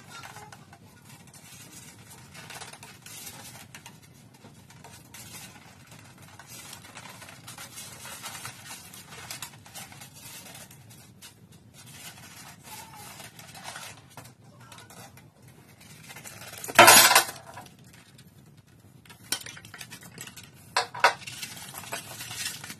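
Handling noise as white polystyrene foam packing blocks are worked off a KitchenAid stand mixer: foam rubbing, with clinks and knocks of the mixer's metal parts. The loudest is one sharp burst about seventeen seconds in, followed by a few short clicks.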